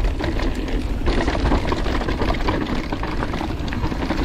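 Mountain bike rolling fast down a rough dirt trail: a steady rumble of tyres and wind with dense, irregular rattling and clatter from the bike over bumps.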